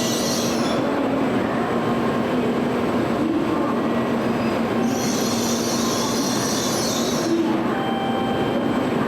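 Tokaido Shinkansen train running through the station at the platform, a steady loud rolling noise with a few faint steady tones. A high hiss drops out shortly after the start, returns about five seconds in for two seconds, and comes back near the end.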